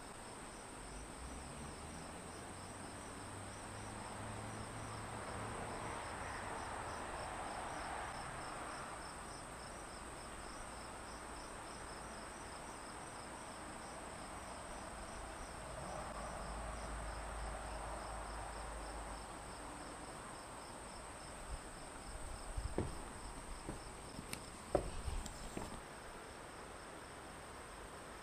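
Insects chirping steadily outdoors: a continuous high trill with a regular pulsed chirp beneath it. A soft rushing sound swells up twice, and a few sharp knocks come near the end.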